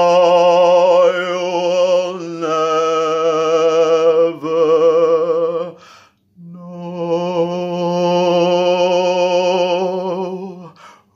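A man singing long held notes without clear words, each note wavering with vibrato, with a brief break about six seconds in before one last long note.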